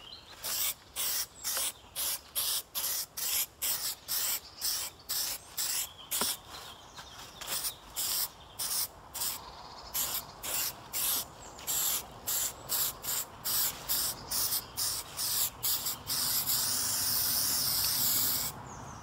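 Aerosol spray paint can spraying in a rapid series of short hissing bursts, about two to three a second, then one longer continuous spray near the end, laying a coat of paint on a computer case part.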